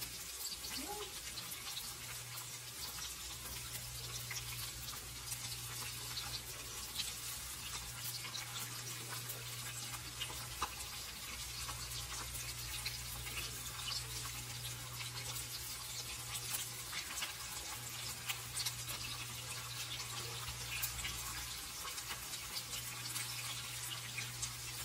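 Chopped onions sizzling in oil in a stainless steel wok: a fine, steady crackle of many small pops, over a steady low hum.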